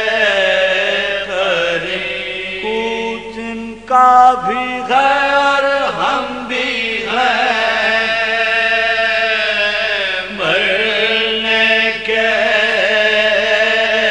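Soz-khwani: a male voice chanting an Urdu marsiya lament without instruments, drawing out long held, slowly bending melodic notes. It comes in louder about four seconds in.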